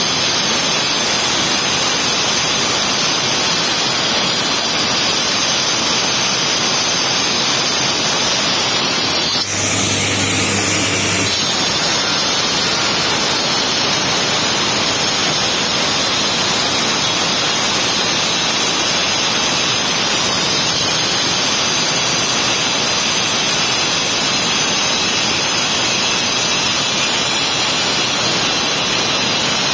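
Handheld electric marble cutter with a cold-pressed segmented diamond blade cutting dry through a granite slab, a loud, steady grinding whine. About ten seconds in, the sound dips briefly and changes in texture for about two seconds, then returns to the steady cut.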